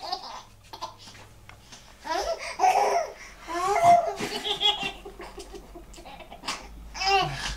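Baby giggling in short bursts of laughter, the strongest bouts about two to five seconds in and another just before the end.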